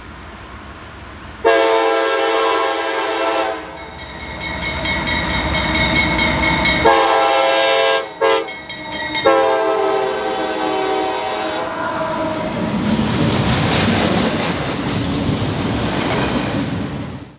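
Diesel locomotive air horn sounding a long blast, then a run of shorter blasts broken by brief gaps, as the locomotives run past close by; the engine and rail noise swells in the second half as they go by.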